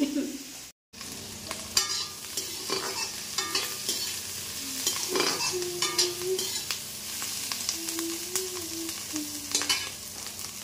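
Chopped green capsicum sizzling as it fries in a steel kadhai, with a perforated steel spatula scraping and stirring it around the pan in repeated short strokes. The sound drops out briefly about a second in.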